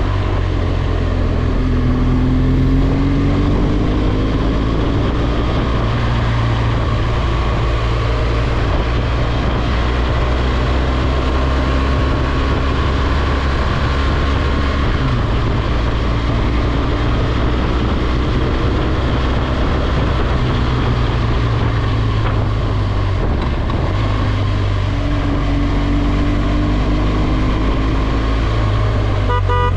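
BMW R1200GS boxer-twin motorcycle engine running at a steady cruise, with wind noise on the microphone; the engine note dips briefly a couple of times as the throttle eases. A horn toots briefly at the very end.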